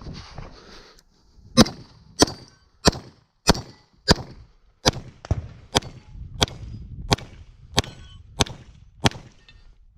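A steady string of 9mm pistol shots, about a shot and a half each second, each followed by a short metallic ring as the bullets hit steel targets.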